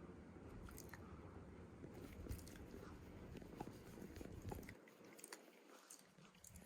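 Faint chewing with small scattered clicks and crunches: a Shiba Inu biting and chewing on something.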